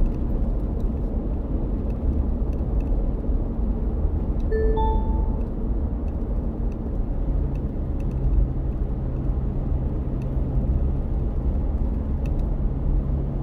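Steady tyre, road and engine noise inside a car's cabin while it drives along an expressway. A short two-note electronic beep, a lower note then a higher one, sounds about four and a half seconds in.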